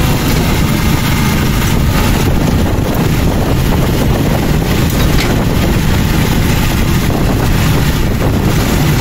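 A motorcycle-and-sidecar tricycle running steadily while it travels, with heavy, even wind rumble on the microphone.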